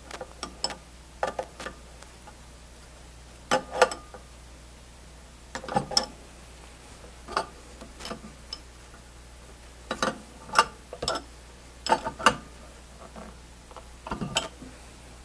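Short metallic clinks and taps in irregular clusters a second or two apart, from an adjustable wrench on the brass retaining nuts of an HVAC refrigerant charging manifold and the manifold being handled on the bench as the nuts are snugged.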